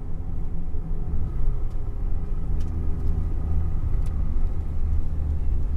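Car driving, heard from inside the cabin: engine and road noise make a steady low rumble, with a few faint ticks.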